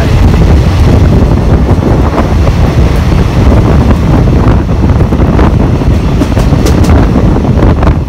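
Wind buffeting the microphone held out of a moving passenger train's open doorway, over the steady rumble of the train running along the track. A few faint sharp ticks come in the later seconds.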